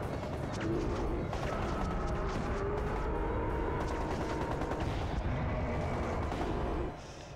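Rapid automatic rifle fire from a film soundtrack: a dense run of shots and impacts with no gaps. It cuts off sharply shortly before the end.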